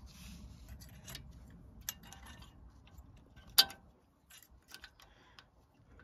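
Light metallic clicks and taps of a steel brake pad retaining clip and slide pin being fitted to a front brake caliper, with one sharper click about three and a half seconds in.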